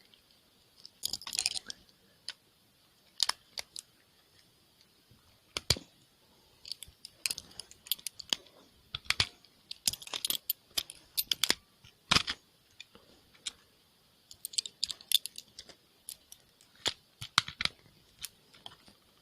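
Plastic case of a GFCI outlet being forced open with hand tools: irregular sharp cracks and clicks, with short bursts of scraping, as the housing is pried and broken apart.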